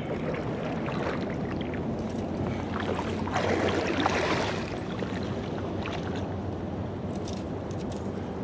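River water rushing steadily, with a louder swell of noise about three and a half seconds in that lasts about a second.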